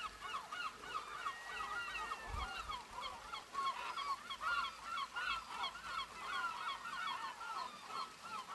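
A flock of gulls calling: many short cries overlapping in a dense, continuous chorus, over the steady hiss of heavy rain.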